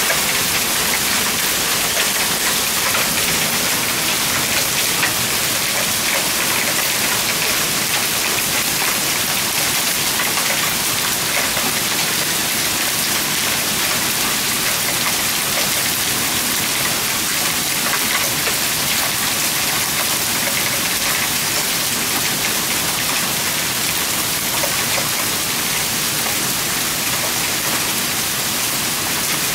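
Hailstorm: hail and heavy rain falling on a leaf-strewn yard and driveway, a dense steady hiss of countless small hits.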